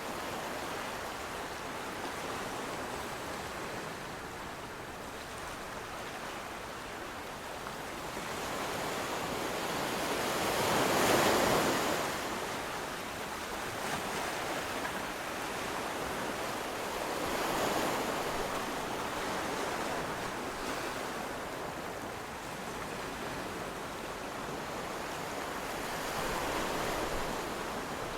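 Sea waves washing in, a steady rush that swells three times as waves break, the loudest about eleven seconds in.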